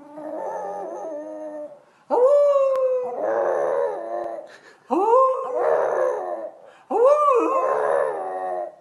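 French bulldog howling: a run of drawn-out howls about two seconds apart, each rising quickly and then sliding down in pitch.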